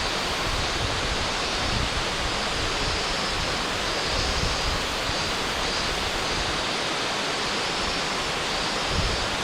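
Waterfall pouring down, a steady, even rush of falling water with an uneven low rumble beneath.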